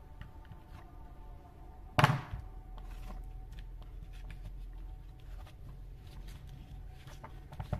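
Plastic recoil starter of a chainsaw handled on a workbench: a sharp knock about two seconds in, then faint light clicks as the rope pulley is turned clockwise by hand to wind the rope and pre-tension the rewind spring. A faint steady hum runs underneath.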